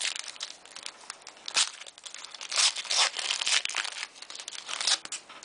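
Trading-card pack wrapper crinkling and tearing as a pack is handled and ripped open. It comes as a string of short rustling bursts, loudest around the middle and again near the end.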